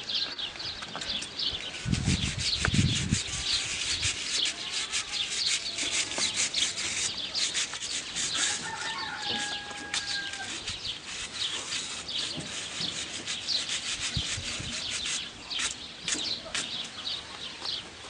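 Horse's hoof being scraped clean with a hand tool: a quick, continuous run of short scraping strokes, with a few dull thumps about two seconds in.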